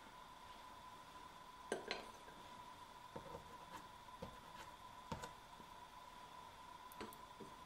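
Faint, scattered clicks and light knocks from handling soft pastel sticks at the drawing board, about nine in all, the loudest near the start. A faint steady high-pitched hum runs underneath.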